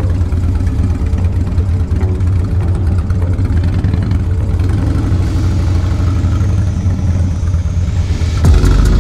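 Harley-Davidson Dyna Clubstyle's V-twin engine with a TBR exhaust, running steadily at low speed. Near the end, louder music cuts in over it.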